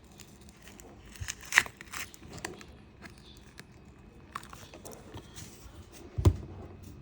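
Small clicks, taps and scraping as the heat-softened, glued back cover of a Xiaomi Redmi phone is worked loose, with two sharper knocks, one about a second and a half in and one near the end.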